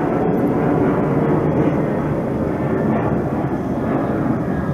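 Steady, loud static-like noise with a fine rapid choppiness, holding even throughout.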